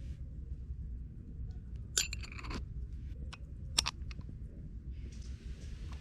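Camp coffee gear being handled: a few sharp clicks and short clattering scrapes, about two seconds in and again near four seconds, over a steady low rumble.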